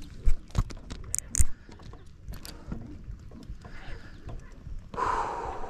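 Sharp clicks and knocks from hands working a spinning reel and rod, several in the first second and a half, then a short rush of noise about five seconds in.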